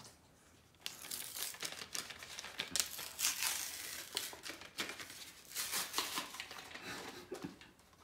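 Plastic and card packaging of a number-one birthday candle crinkling and rustling as it is torn open and the candle pulled out by hand, starting about a second in and stopping near the end.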